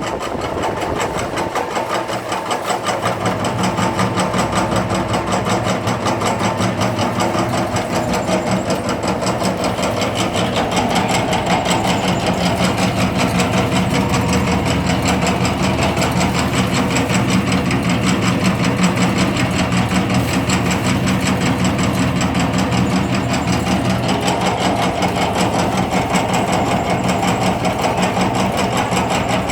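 Automatic dough-dicing machine running steadily: a motor hum under a rapid, even clatter of its cutting blades chopping rice-flour dough into small cubes.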